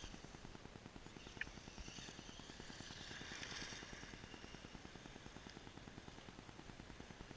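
Faint whine of a Traxxas Slash RC truck's electric motor, rising about two seconds in and fading away after about four seconds.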